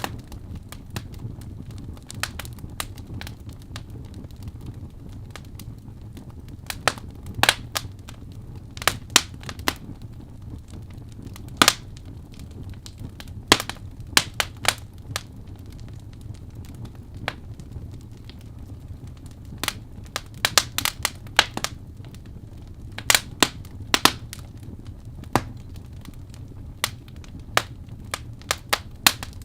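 Firewood burning in a fireplace, crackling and popping at irregular moments, sometimes several sharp snaps in quick succession, over a low steady undertone.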